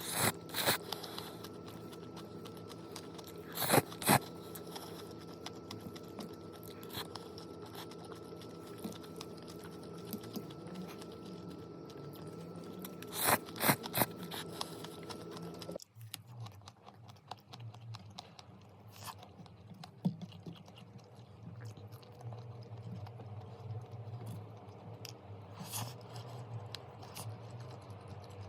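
A person eating, chewing and crunching food, with loud crunchy bites near the start, at about four seconds and at about thirteen seconds, and softer chewing clicks later. A steady background hum stops abruptly about halfway through.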